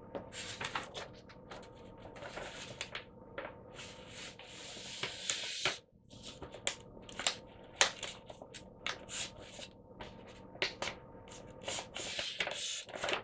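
Pen writing on paper: short, irregular scratching strokes, with a longer scraping stretch partway through, over a faint steady hum.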